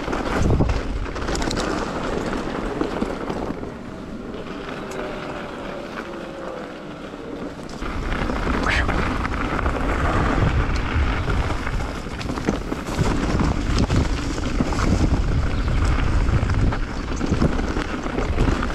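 Wind buffeting the microphone of a camera on a moving electric mountain bike, mixed with tyre rumble and rattles over a rough trail. The noise drops for a few seconds partway through, then comes back abruptly.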